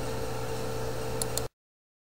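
Steady hiss and electrical hum of an open microphone, with two short clicks about a second and a quarter in, then the sound cuts off suddenly to dead silence as the recording ends.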